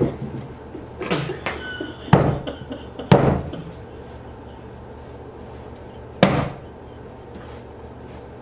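A paper plate of whipped cream pushed into a face, followed by several sharp slaps, the loudest about two, three and six seconds in.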